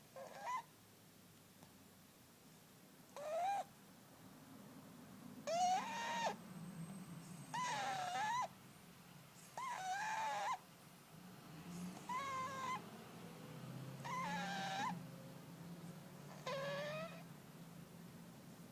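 An overweight cat snoring loudly. Each breath, about every two seconds, carries a short high squeaky whistle-like note over a low rumbling snore.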